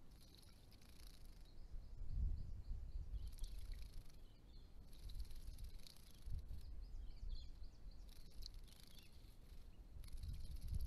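Diamond firetails bathing in a shallow pond: about five short bursts of light splashing and wing fluttering, faint against low rumbles on the microphone.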